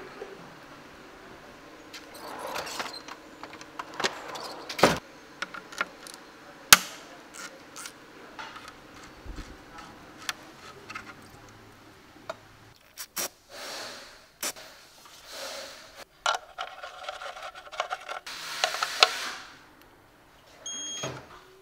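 Hand tools worked at a car's oil-pan drain plug: scattered metallic clicks, taps and scrapes, with sharp knocks about five and seven seconds in and a short rasping burst of wrench work near the end.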